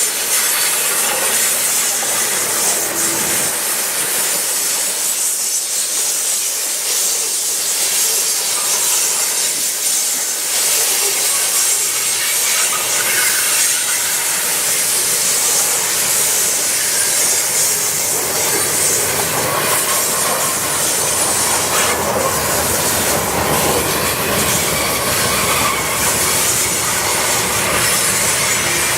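Freight train cars rolling past on the rails: a steady wheel-and-rail clatter with a hiss over it, the low rumble growing stronger in the second half.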